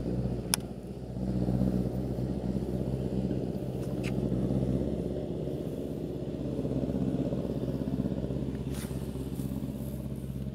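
A motor engine running steadily with a low, even hum, with a few short sharp clicks over it.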